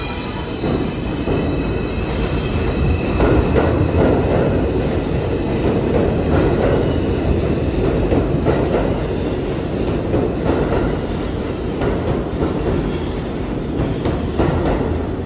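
New York City Subway train of R142 cars running along the platform of an underground station: a steady, loud rumble that swells a few seconds in, with repeated knocks from the wheels.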